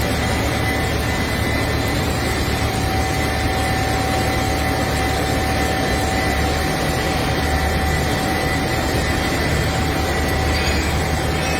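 Diesel engine of a Hydra mobile crane running steadily under load, with a constant whine, over an even hiss of heavy rain.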